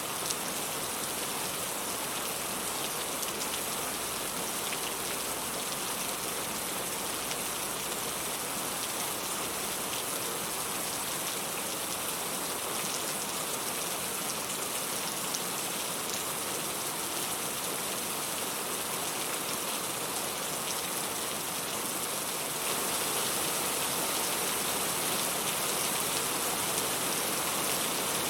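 Steady rain falling, a dense, even patter of drops. It steps up slightly in loudness near the end.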